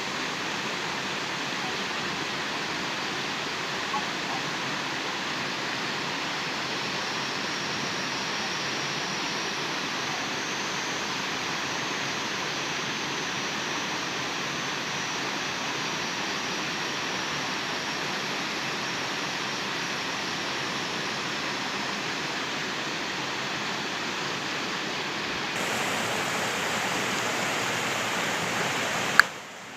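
Steady rush of flowing water in a small canal or stream. About 25 seconds in it jumps a little louder and brighter, and just before the end there is a sharp click and a brief dropout.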